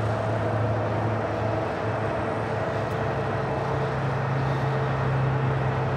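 Steady low drone of jet aircraft noise across an airport, a constant hum with a few level tones and no clear rise or fall.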